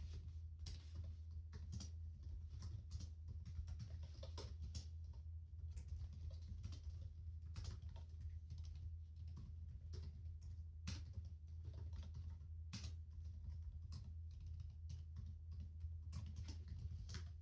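Typing on a computer keyboard: a steady, irregular run of key clicks, several a second, over a constant low hum.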